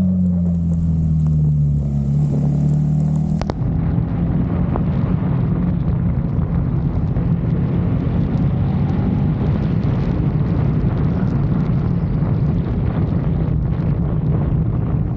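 KTM 390 motorcycle's single-cylinder engine running on the move, its pitch easing down over the first few seconds. After a sharp click about three and a half seconds in, it goes on as a rougher, noisier running sound.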